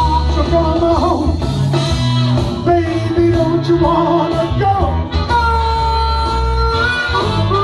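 Blues harmonica played into a microphone over a karaoke backing track of guitar, bass and drums, with a long held note about five seconds in.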